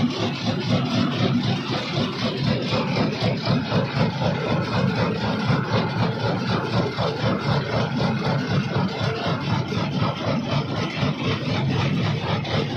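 Large jaw crusher running with its crushing chamber empty: a steady mechanical running noise with an even, rapid pulse of a few beats a second from the swinging jaw, without the cracking of rock being broken.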